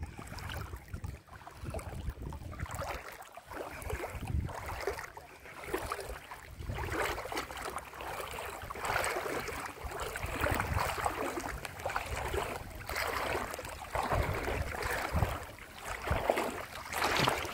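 Small wind-driven waves lapping and splashing right at the microphone at water level, mixed with wind buffeting the microphone in gusts that come and go.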